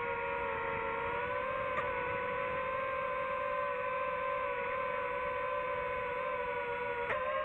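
DJI FPV drone's motors and propellers whining steadily in flight, the pitch drifting slightly up and down, with two faint clicks, one about two seconds in and one near the end.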